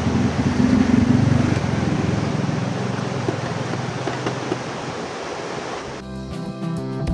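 A steady rushing noise, with guitar music coming in about six seconds in.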